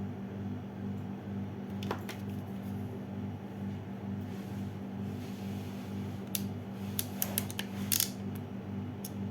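SN-03BM ratcheting crimping tool crimping a terminal onto a wire: a single sharp metallic click about two seconds in, then a quick run of clicks in the last few seconds as the crimp closes. A steady low hum runs underneath.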